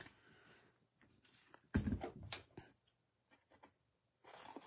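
Paper-crafting tools handled on a craft mat: a short clatter of knocks about two seconds in as a metal paper punch is set down, then scissors snipping card stock near the end.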